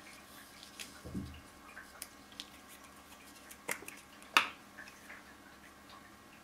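Scotch glue stick and paper being handled on a cutting mat: soft paper rustles and taps, a dull thump about a second in, and a sharp plastic click a little over four seconds in as the glue stick's cap is pushed back on.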